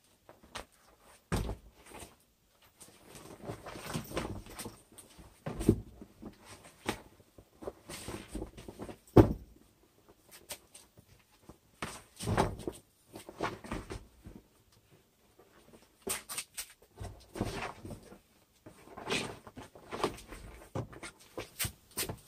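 Rustling and irregular knocks of a deflated vinyl air mattress being handled in a car's boot, with the loudest knock about nine seconds in.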